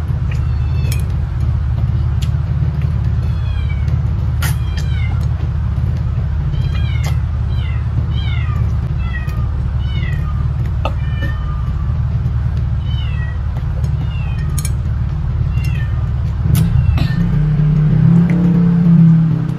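A cat meowing again and again: about twenty short, high meows, each falling in pitch, over a steady low hum.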